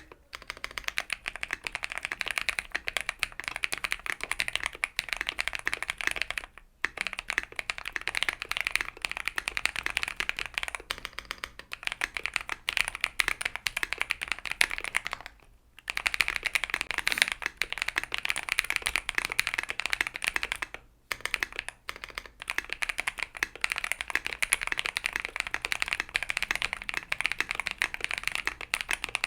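Fast, continuous typing on a QK60 60% mechanical keyboard with Holypanda tactile switches lubed with Krytox 205g0, on an FR4 plate with PBT keycaps: a dense stream of key clacks, broken by three brief pauses.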